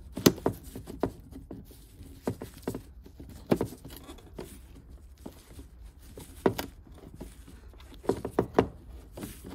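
A screwdriver clicking and scraping against the plastic bumper trim and metal around the lower front indicator of a VW Passat B6, working at its Phillips screw. The sound is irregular light clicks and knocks, with a few louder ones.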